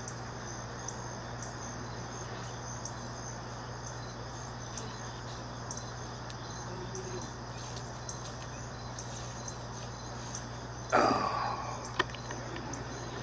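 Insects chirping steadily and high-pitched, repeating about twice a second over a steady low hum. About eleven seconds in there is a loud, brief bump, followed a second later by a sharp click.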